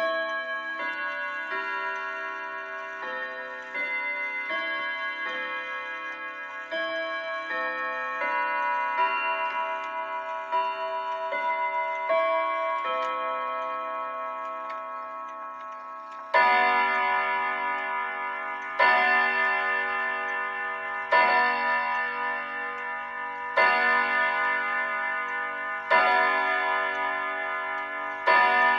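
A 1971 Barwick Howard Miller grandfather clock sounding its hourly chime. A melody of ringing chime notes plays for about sixteen seconds. Then the hour strike begins, a deeper note repeated about every two and a half seconds, six strikes before the end, each ringing on into the next.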